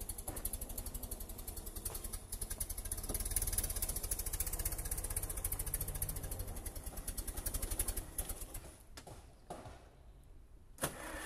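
Old forklift's engine running with a rapid, even firing beat as it drives, then dying away about nine seconds in. A single sharp click follows near the end.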